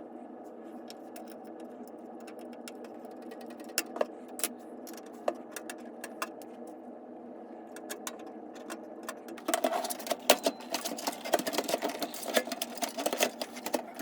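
Small clicks and knocks of computer hardware being handled and fitted into a PC case over a steady hum. About nine and a half seconds in, the clicks turn into a dense, louder run of clicking and rattling.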